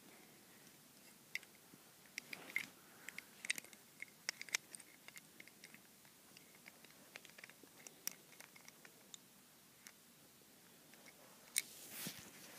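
Faint, irregular light clicks and taps of a Lego brick safe being handled and its mechanism worked. The clicks are busiest in the first few seconds, with another cluster near the end.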